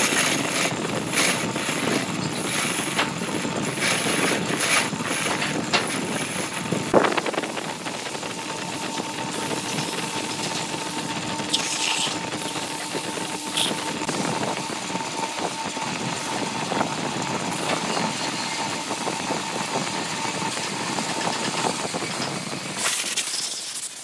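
Wood lathe running while a hand tool cuts the spinning wood-and-epoxy-resin blank, with scraping and sharp ticks from the cut in the first several seconds. Then a steadier hum with a faint whine while sandpaper is held to the turning piece. The sound drops away near the end as the lathe is stopped.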